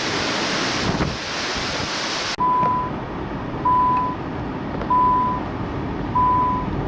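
Gusty wind blowing across the microphone. About two and a half seconds in it cuts off abruptly, and four evenly spaced electronic beeps follow, each about half a second long at one steady pitch, over a low hiss.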